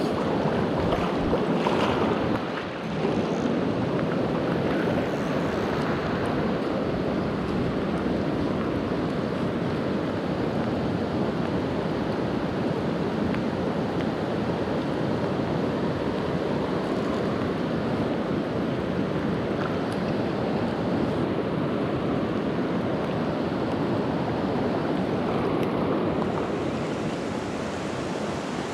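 Steady rushing noise of a river's current, with rain falling on the water's surface.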